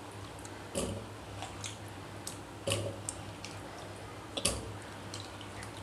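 Chunks of raw peeled potato dropped by hand into a glass bowl: a string of irregular soft knocks and clicks as the pieces land on the glass and on each other, the loudest about four and a half seconds in.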